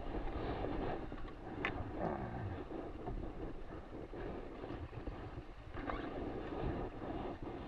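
Water rushing and splashing along the hull of an RS600FF foiling dinghy sailing at about five knots, with wind buffeting the microphone. A short sharp click comes about a second and a half in.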